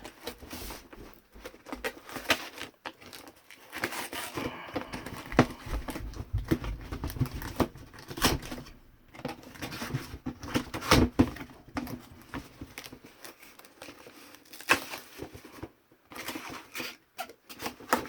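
A cardboard box being worked open by hand: irregular tearing, rustling and crinkling of cardboard and paper packaging, with scattered knocks and scrapes.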